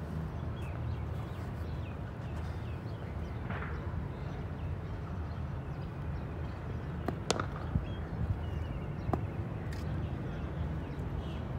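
A few sharp knocks of a cricket ball in net practice, the loudest about seven seconds in, with fainter ones after it, over a steady low outdoor rumble.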